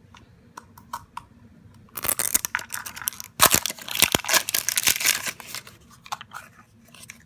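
A foil blind bag is torn open and crinkled as the toy figure is taken out. There are a few small clicks first, then about two seconds in a loud burst of tearing and crinkling that lasts about three seconds, with sharp cracks in the middle. Light rustles and ticks follow near the end.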